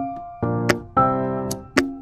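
Background instrumental music: keyboard chords that change about every half second, with sharp ticking percussion.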